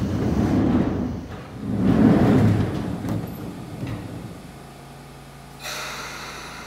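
Sotetsu 8000 series train's sliding passenger doors closing: two broad whooshes of door movement, the second about two seconds in and the louder. Near the end a steady electrical hum of several tones starts suddenly under the car.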